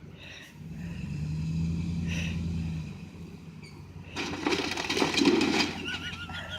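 A vehicle engine runs steadily for about two seconds. Then, after about four seconds, comes a loud stretch of crunching and clattering as the microwave is crushed and breaks apart.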